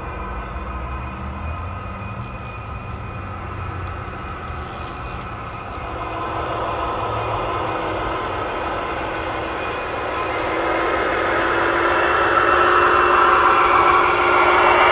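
G-scale model train, a lashup of diesel locomotives (five Dash 9s and a GP-38) hauling a long container train on its rails, running steadily and growing louder as the locomotives come close near the end.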